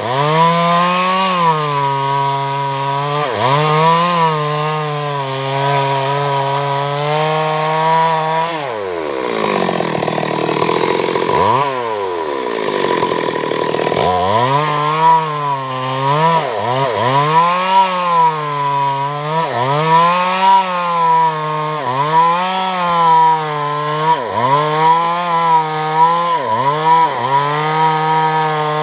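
Chainsaw cutting wood, its engine pitch dipping and recovering every second or two as the chain is loaded in the cut. About a third of the way in the engine sinks low for several seconds, then revs back up and carries on cutting.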